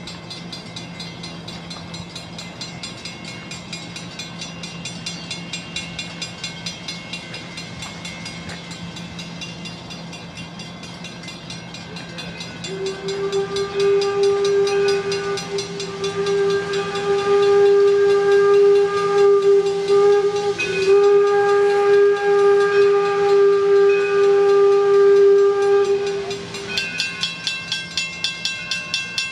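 Steam locomotive running with a steady pulsing beat, then its whistle sounds one long blast of about fourteen seconds, with a brief dip midway; the whistle is the loudest sound. The locomotive is Detroit & Lima Northern No. 7, an 1897 Baldwin 4-4-0 American type.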